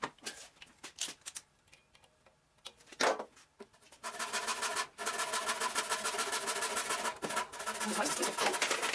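A few knocks and clicks, then about four seconds in a small battery-powered hacksaw starts and runs steadily with fast strokes, cutting through a wooden limb.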